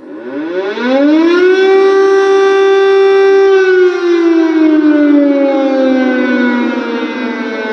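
Air-raid warning siren sounding loud over a city: it winds up in pitch over about a second and a half, holds a steady wail for about two seconds, then slowly slides back down.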